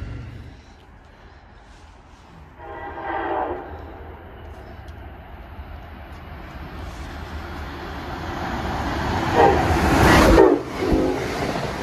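Amtrak passenger train approaching and passing at speed, sounding its horn: a blast about three seconds in, then a louder blast around ten seconds and a brief one just after. Under the horn its rumble and rush of air build to the loudest point as it reaches the platform.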